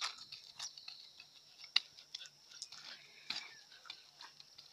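A run of irregular sharp clicks and taps, about a dozen, the loudest a little under two seconds in, over a faint steady high hiss.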